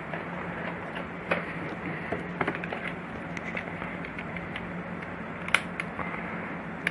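Steady low electrical hum and background hiss, with a few scattered light clicks and taps, the sound of small parts being handled.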